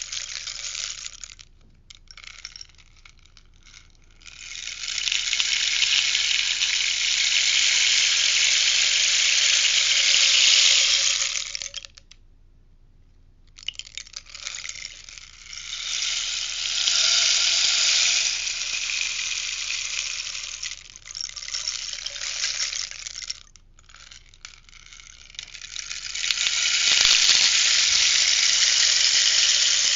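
Rainstick being turned over and over, its pellets cascading inside the tube in a steady hissing patter. It plays as long pours of about eight or nine seconds each, with brief pauses as the stick is turned and the next pour begins.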